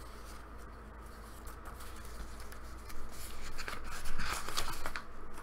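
Paper rustling as the pages of a small handmade booklet are handled and turned, starting about three seconds in and coming in a few irregular strokes. Before that only a faint low hum.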